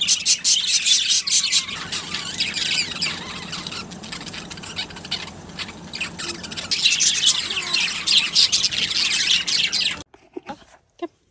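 A crowd of parrots squawking and chattering together, a dense high-pitched din of rapid overlapping calls that swells near the start and again later, then cuts off abruptly near the end.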